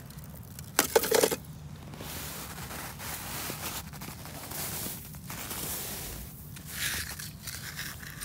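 Gloved hand digging and brushing through snow: an uneven crunching, scraping hiss that swells and fades, with a short burst of sharp knocks about a second in.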